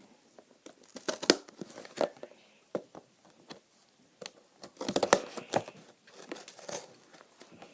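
Doll packaging being opened by hand: cardboard and plastic crinkling and tearing in irregular crackling bursts, busiest about a second in and again around five seconds in.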